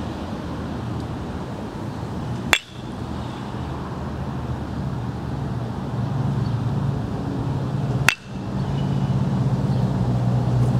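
Baseball bat striking tossed balls during batting practice, twice, about five and a half seconds apart: each hit is a sharp crack with a brief ringing tail.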